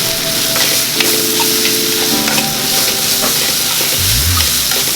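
Quinoa sautéing in a hot pan with olive oil, shallots, garlic and tomatoes: a steady sizzle, with short scrapes and clicks of it being stirred.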